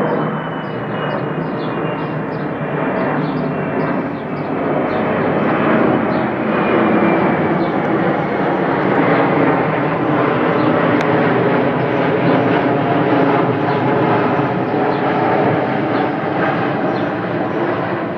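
Twin-engine jet airliner passing low overhead on approach with its landing gear down: steady jet engine noise with a thin high whine that slides slowly down in pitch, swelling to its loudest in the middle and easing off near the end.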